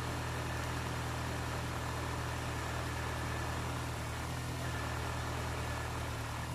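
Honda City i-DSI engine idling steadily with the A/C compressor engaged, its accessory belt running over a freshly replaced tensioner-pulley bearing. It makes only a steady even hum: the noise that used to come up whenever the A/C switched on is gone.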